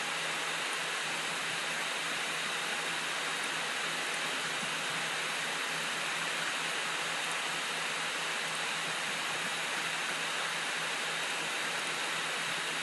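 Steady background hiss of a recording, with a faint low hum underneath, unchanging throughout.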